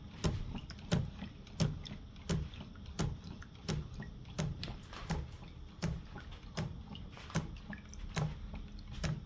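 Quarter-scale Rider-Ericsson hot air pumping engine running slowly, one soft knock about every three quarters of a second with each turn of the flywheel, over the faint trickle of pumped water falling from the spout into the barrel. It is turning slowly because the propane burner flame is turned low.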